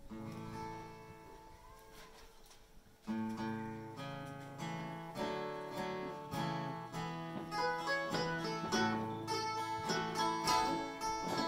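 Instrumental intro of a folk song on acoustic guitar and other plucked strings. One chord rings and fades, then about three seconds in the instruments start playing together and grow gradually louder.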